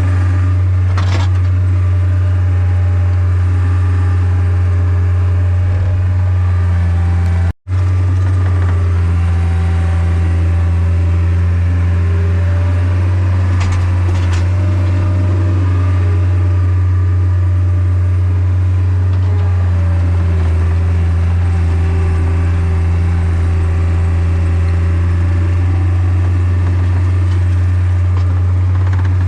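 Engine running steadily at constant speed with a strong low hum. It cuts out for a split second about seven and a half seconds in.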